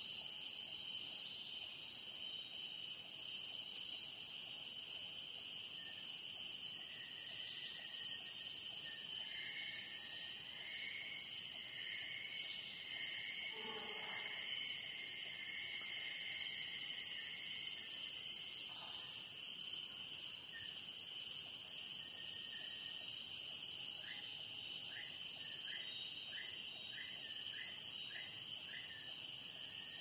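Borneo rainforest ambience: a steady, high-pitched drone of insects and cicadas, with birds calling over it — a run of drawn-out calls through the middle, and a quick series of about eight short rising notes near the end.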